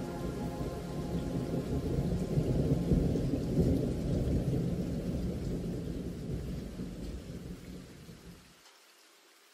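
Recorded rain with a long, low rumble of thunder in the soundtrack, swelling about three seconds in and fading out near the end.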